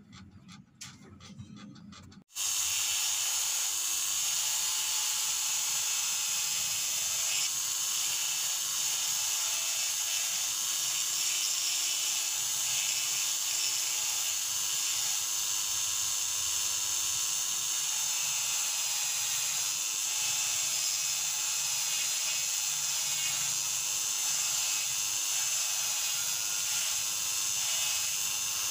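After about two quieter seconds, a handheld electric rotary tool starts abruptly and runs steadily with a high-pitched whine and hiss, its small bit grinding detail into a carved wooden pipe.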